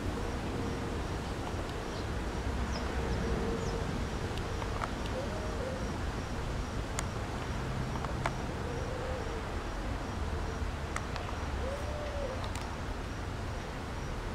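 Outdoor ambience: steady background noise with a faint constant hum, three faint short calls that rise and fall, and a few sharp clicks.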